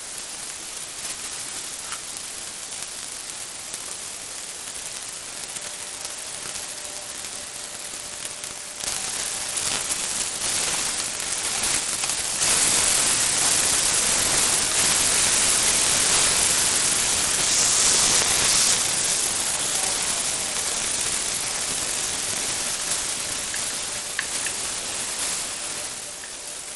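Fatty pork neck grilling, a steady sizzling hiss that steps up louder about nine seconds in and again about twelve seconds in.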